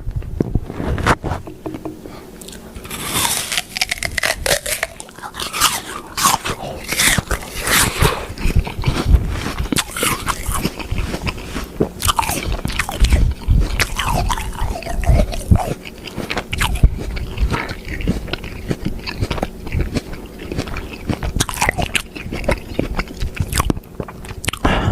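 Biting and chewing crunchy food: a long run of irregular crisp crunches, some bites sharp and loud.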